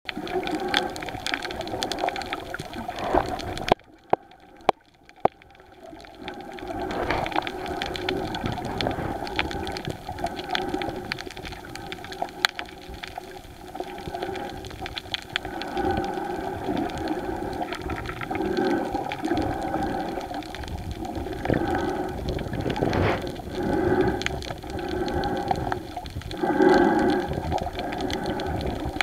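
Muffled underwater sound picked up by a camera held below the surface while snorkeling: water rushing and sloshing that swells and fades every second or two. About four seconds in it drops quieter for a couple of seconds, broken by a few sharp clicks.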